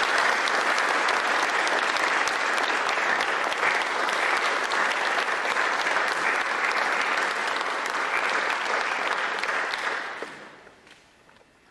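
Audience applauding, a dense patter of hand claps that dies away about ten seconds in.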